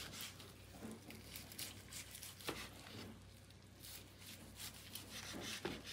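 Long slicing knife carving through the crisp skin and meat of a deep-fried turkey on a wooden board: faint, scattered crunching and crackling.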